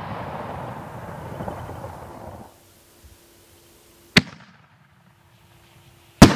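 Consumer artillery shell fireworks: the noisy tail of a previous shell burst fades out over the first two and a half seconds, then there is a short sharp launch pop of the next shell from its mortar tube, and about two seconds later a much louder bang as that shell bursts.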